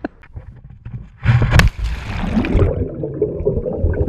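A sudden splash into water about a second in, followed by steady underwater bubbling and gurgling.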